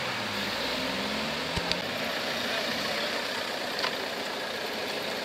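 A car engine running as the car pulls away, its pitch lines fading within the first two seconds. After that comes a steady hum of engines and background noise, with a few short clicks.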